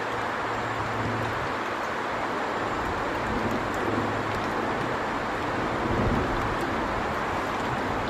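Steady rushing outdoor noise, even and unbroken, with no bird call standing out.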